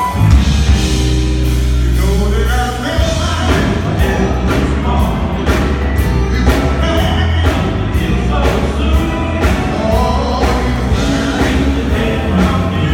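Live gospel band playing loud, with electric guitars, heavy bass and steady drums under a man singing. The full band comes in at once at the start.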